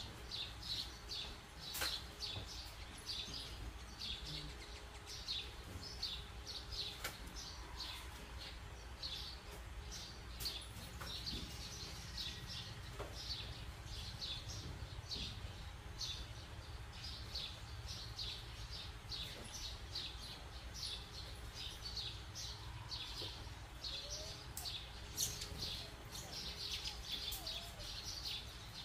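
Small birds chirping, short high chirps repeating several times a second throughout, over a faint steady low hum, with a few soft knocks.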